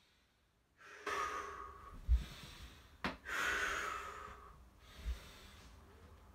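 A man breathing hard through frog squats: two long, noisy breaths a couple of seconds apart, each followed by a soft low thud as he moves on the mat.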